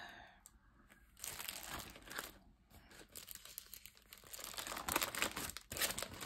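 Clear plastic sleeves of 12-by-12 sticker sheets crinkling as they are flipped over one after another on a ring, in several rustling bursts, the loudest near the end.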